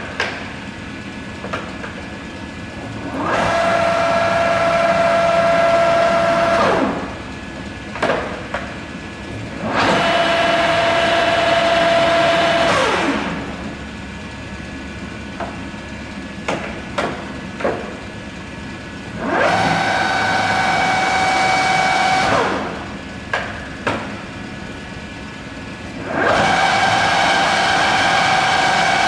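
American Pacemaker engine lathe's 10 HP drive and geared headstock running the spindle up with a steady whine, holding for about three seconds and winding down, four times over. The later two runs whine at a slightly higher pitch. Between runs there are clicks and clunks as the control and speed levers are shifted.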